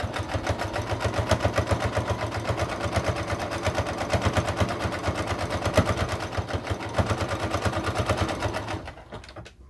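Electric domestic sewing machine running at a steady speed, its needle stitching through a fabric strip in a rapid, even rhythm, stopping about a second before the end.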